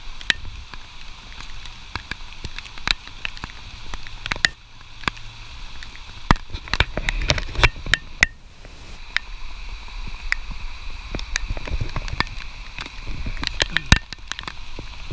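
Steady rain with frequent sharp taps and knocks. Near the start and again near the end, a small hand trowel digs and scrapes into wet garden soil.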